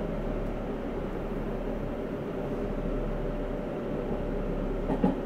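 Seibu 6000 series electric train running steadily, heard from inside the passenger car: even rolling and running noise with no clear rise or fall in motor pitch. A short knock comes near the end.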